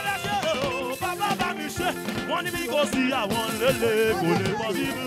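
Live gospel praise music: a man singing lead into a microphone over a band with backing voices, steady held keyboard-like tones and percussion.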